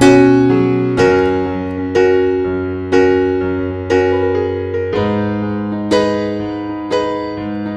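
Background piano music: a chord struck about once a second, each ringing out and fading before the next.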